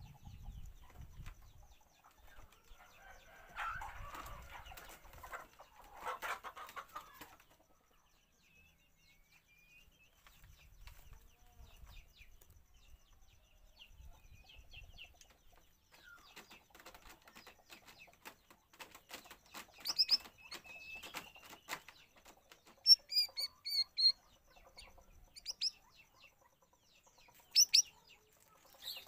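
Chickens clucking, with two harsh calls early on. Then a run of rapid clicking that sounds like wing flutters, and a few short, sharp bird chirps in the second half.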